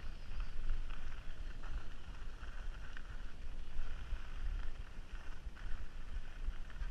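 Skis running over groomed snow: a steady scraping hiss from the edges, with a few stronger scrapes as the skier turns. Wind buffets the camera microphone underneath as a low rumble.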